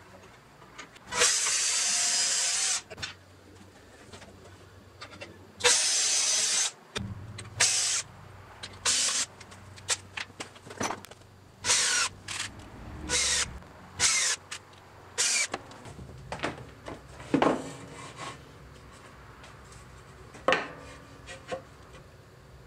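Cordless drill running in bursts: two longer runs of about a second and a half each, then a dozen or so short spurts, as it drills and drives screws through steel angle corners into a wooden box.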